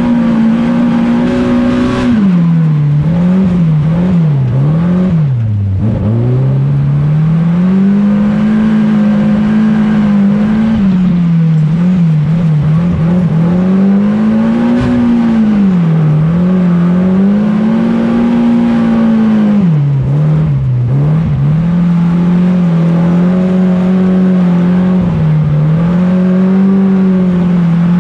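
Saloon stock car's racing engine heard from inside the stripped cockpit, running hard with its pitch repeatedly dropping and climbing back as the throttle is lifted and reapplied, with bursts of quick on-off blips every few seconds.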